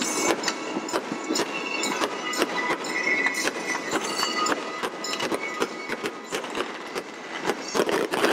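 Aerial fireworks crackling and popping in a dense, irregular run of sharp cracks, thickest near the end.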